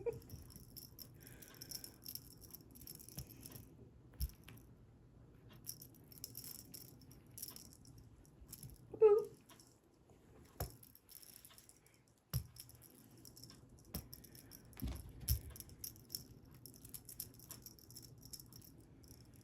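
Faint, intermittent jingling and rattling with scattered light taps, as of a cat toy being batted about. About nine seconds in there is one short cat chirp.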